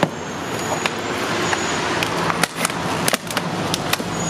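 Handling of a Nerf crossbow's retail box: irregular sharp clicks and plastic rattling as the foam arrows are worked free of their packaging, over steady background noise.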